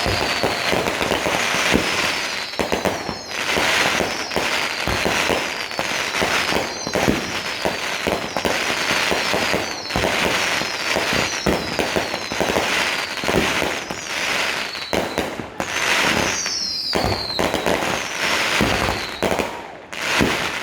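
Fireworks going off in a dense, continuous barrage of bangs and crackling, with short whistles falling in pitch that recur every second or two.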